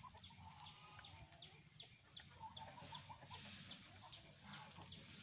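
Muscovy ducklings peeping faintly: a run of short, high, falling peeps, about three a second.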